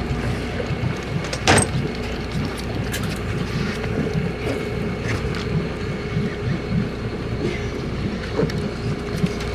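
Sportfishing boat's engine running steadily, a low rumble with a steady hum, with wind and water noise; a single sharp knock about a second and a half in.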